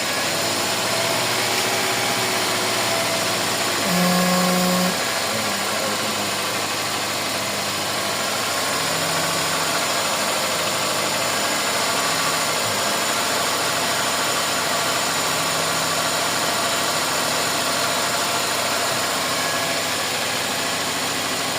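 Toyota 4A-FE 1.6-litre inline-four engine running steadily at a raised idle, which the mechanic suspects comes from parts fitted the wrong way round. A brief higher tone sounds once, about four seconds in.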